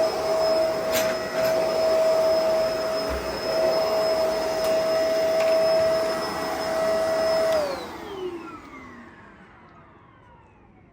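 Bissell 2-in-1 Lift-Off vacuum cleaner running with a steady motor whine, with a few sharp crackles of crunchy debris being sucked up. About three-quarters of the way through it is switched off, and the whine falls in pitch and fades as the motor spins down.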